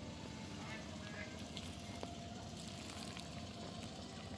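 Faint water sounds of a person moving waist-deep in a river, over a steady low background noise.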